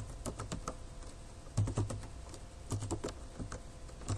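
Computer keyboard being typed on: scattered single keystrokes, then two quick runs of keys about one and a half and three seconds in.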